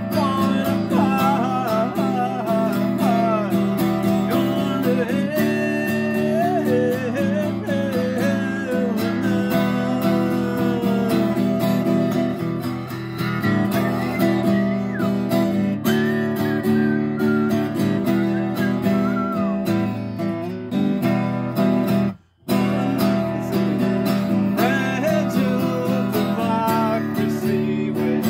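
Acoustic guitar strummed in a steady rhythm, with a wordless melody line wavering over the chords. The sound drops out for a split second about three-quarters of the way through.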